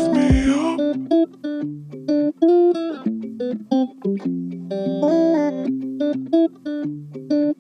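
Background music: a plucked-guitar melody over sustained lower notes.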